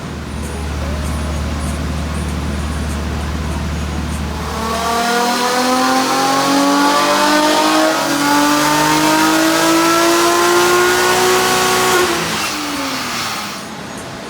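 Nissan 350Z's 3.5-litre V6 on a chassis dyno: a low steady drone, then from about five seconds in a wide-open-throttle pull with the revs rising steadily for about seven seconds. The throttle is cut suddenly near the end and the revs fall away.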